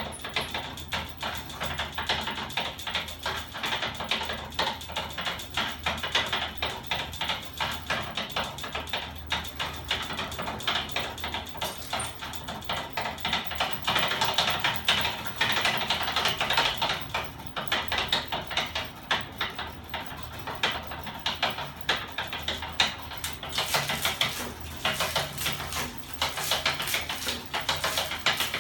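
Homemade ornithopter-style magnet engine driven by small electric motors, running: its metal frame, crank and linkages give a fast, dense rattling clatter over a low steady motor hum, louder in a couple of stretches.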